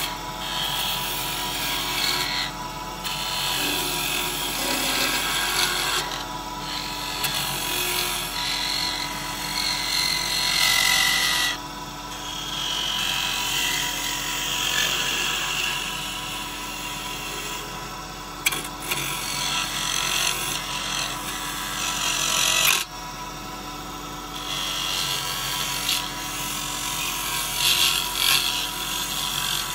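Small benchtop wood lathe running with a steady motor hum while a hand-held turning tool cuts the spinning workpiece. The cutting makes a scraping hiss of wood shavings that swells and fades as the tool is worked in. The sound changes abruptly twice, about 12 and 23 seconds in.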